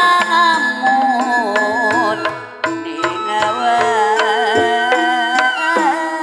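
Organ tarling music: a bending, wavering lead melody over sustained keyboard chords, with kendang drum strokes beating underneath.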